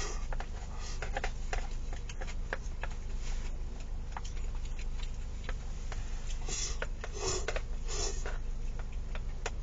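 Wooden chopsticks clicking and scraping against a plastic food container as the last of the rice is shovelled into the mouth: irregular sharp clicks, with a few longer scrapes about seven seconds in.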